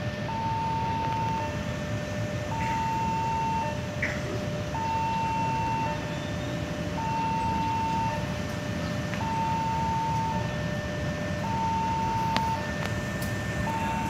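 Level-crossing warning alarm sounding a repeating two-note electronic tone, a higher note and a lower note of about a second each, over the low rumble of a diesel locomotive approaching slowly.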